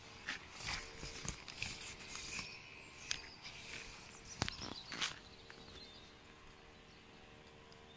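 Tent fabric rustling as it is handled at the teepee's pole and apex vent, with scattered soft knocks and clicks over the first five seconds, then quieter.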